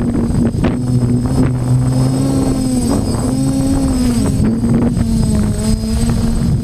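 Drone's electric motors and propellers humming steadily in flight, the pitch wavering and dipping briefly around the middle.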